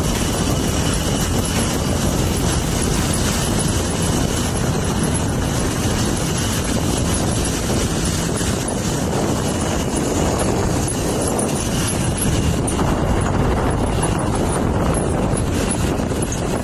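Steady rush of road and wind noise from a vehicle moving at speed, with no letup.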